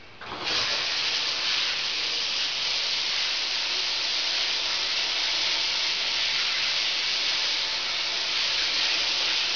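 Shower head spraying water, coming on sharply about a third of a second in and then running steadily.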